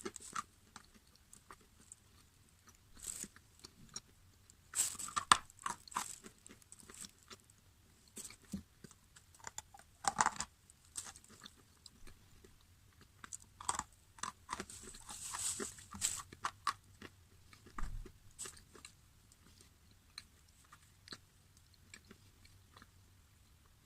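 Close-up eating of crunchy food: bites and chewing crunches, sharp crackles coming in irregular clusters with short quiet gaps between.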